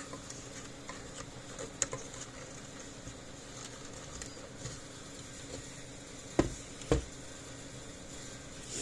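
Small clicks and two sharp knocks, about half a second apart, from handling the wires and plastic housing of a solar electric fence charger as the wires are tucked into place, over a faint steady hum.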